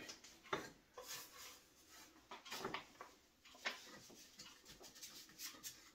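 Faint, scattered clicks and taps of hands handling the Shopsmith 510 headstock's metal housing and parts, a few seconds apart.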